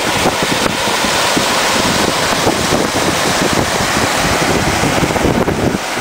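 Steady loud rushing hiss of a volcanic steam vent and a hot stream running over rocks, with wind buffeting the microphone.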